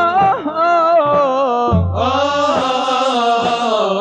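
Male chorus singing an Arabic nasheed in unison, drawing out long ornamented notes that bend up and down, over drum beats.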